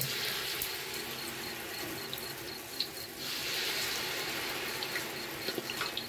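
Battered banana pieces sizzling in hot oil in a wok. The sizzle grows louder about three seconds in. Crickets chirp steadily behind it.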